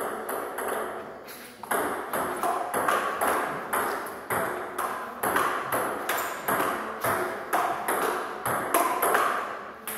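Table tennis rally: the ping-pong ball clicking off the paddles and bouncing on the table, about two to three hits a second. Softer for the first second and a half, then steady, sharp hits.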